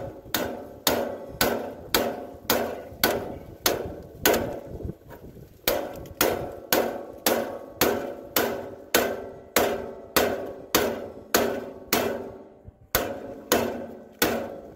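Steady hammer blows, about two a second, on a steel pickle fork wedged at a garden tractor's front spindle, each strike ringing metallically. The fork is being driven to force a frozen, seized spindle past its stop and out of the axle. There is a brief pause in the blows near the end.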